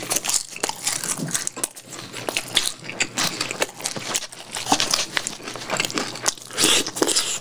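A person chewing crispy, sauced fried chicken close to a microphone, with a steady, irregular run of crunches and wet mouth clicks.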